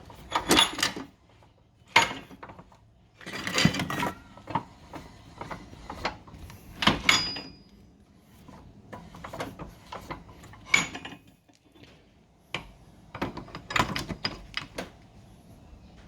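Irregular clatter of metal tools and parts being handled on a workbench: separate knocks and clinks, a few seconds apart.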